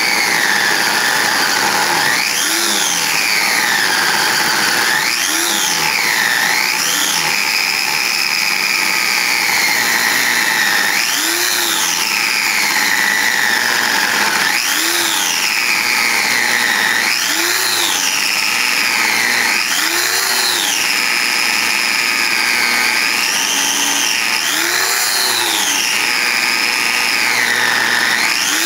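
7-inch abrasive cut-off saw with a 5-amp motor whining as its wheel grinds through a metal pipe fitting. The whine sags in pitch and climbs back again and again, every two to three seconds, as the wheel is pressed into the cut and eased off: the motor slowing under load.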